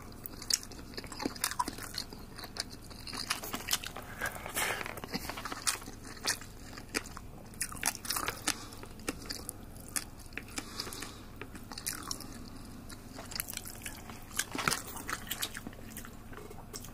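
Eating up close: chewing, with chopsticks clicking and scraping in a plastic bento box, heard as many irregular sharp clicks.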